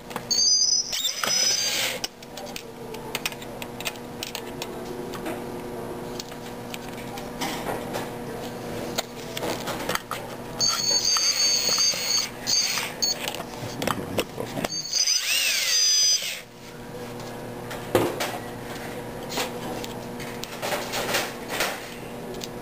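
Power drill-driver whirring in three short runs as it turns the screws on a gas valve's pressure-regulator cover, the first about a second long, the second a couple of seconds, the last with a rising and falling whine. A steady low hum runs underneath.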